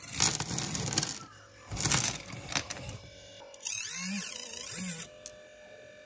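Small rocks clattering and sliding out of the tipped bed of a 1/64-scale RC dump truck, in two bursts within the first two seconds with a few stray clicks after. Later a high whine from the truck's micro motor runs for about a second and a half as the bed comes back down.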